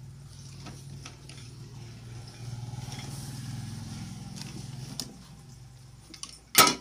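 A low engine hum that swells through the middle and fades again, with faint clicks of small plastic gear being handled. Near the end, one sharp loud knock.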